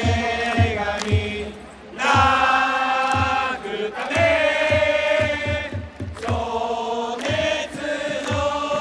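Japanese baseball cheering section of BayStars fans singing a fight song in unison, led by trumpets over a drum beat of about two strokes a second. There is a brief break just before two seconds in, then the song picks up again.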